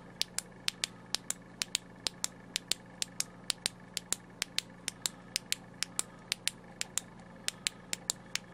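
Tactical tail switch on a Thrunite Catapult V3 flashlight clicked over and over in a steady rhythm, about four clicks a second, as the newly replaced button is tested.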